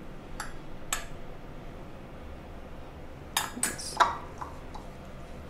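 Light clinks and taps of kitchenware: two sharp clicks in the first second, then a short cluster of clinks a little over halfway through, over a low steady background.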